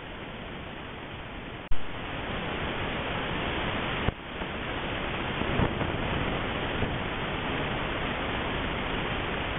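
Steady hiss from a trail camera's microphone, louder after a sharp click about two seconds in, with another sharp click about four seconds in where the recording jumps from one triggered clip to the next.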